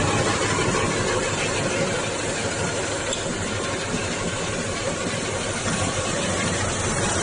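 Vertical plastic pellet mixer running steadily, with a hiss of plastic granules pouring out of its hopper's discharge outlet.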